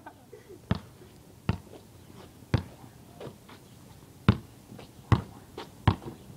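Basketball bouncing on a concrete driveway: about six separate sharp bounces at uneven intervals of roughly a second.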